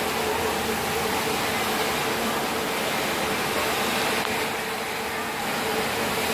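Automatic industrial machine running: a steady whirring hum with a faint steady tone through it.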